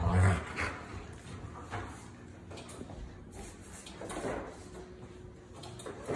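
Knocks and thumps of a Giant Schnauzer puppy pawing and pushing at a refrigerator door's ice and water dispenser, with a loud thump right at the start and scattered knocks after it.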